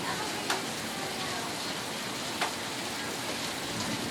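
Steady rain falling, an even hiss, with two sharp taps about half a second in and about two and a half seconds in.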